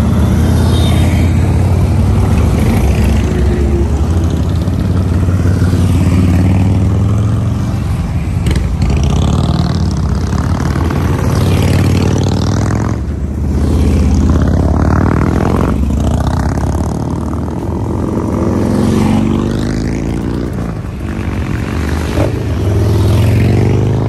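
Motorcycle engine running on the move, its note rising and falling a few times with the throttle, while other vehicles pass several times.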